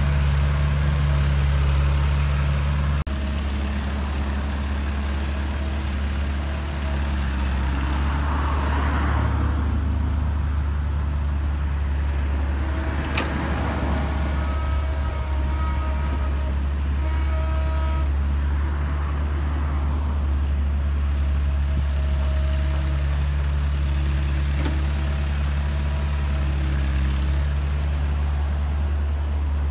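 Heavy diesel machinery from an excavator loading a dump truck, running steadily with a low drone, and a single sharp knock about halfway through.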